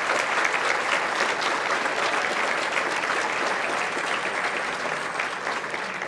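Audience applauding, many hands clapping together, tapering off near the end.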